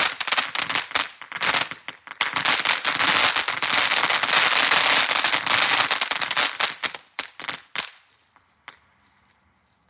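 Firecrackers going off in a rapid, dense string of sharp bangs, thinning to a few last pops about eight seconds in and then stopping.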